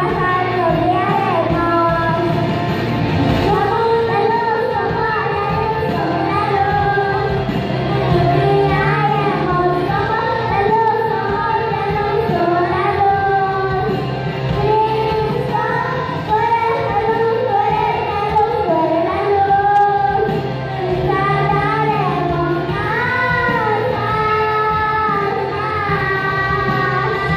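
Young girls singing a song into microphones over music accompaniment, their melody clear above a steady bass line.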